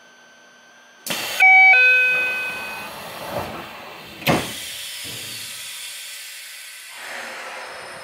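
Door-closing sequence on a Yokohama Municipal Subway 3000R-series train. About a second in there is a short hiss of air from the door gear, then a two-note ding-dong door chime. Just past four seconds comes a sharp thump, followed by a steady low hiss of the door mechanism and the car.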